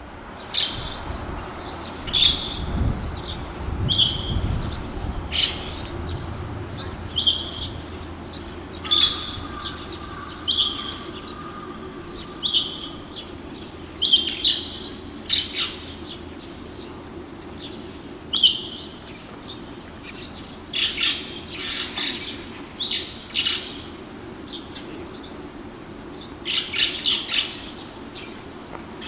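Male red-cheeked starling calling repeatedly: short, high chirps and squeaky notes in irregular runs, with a denser flurry near the end, over a steady low hum.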